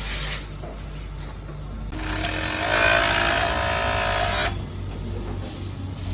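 Direct-drive five-thread overlock sewing machine running at speed for about two and a half seconds, a steady whining buzz that starts about two seconds in and stops sharply.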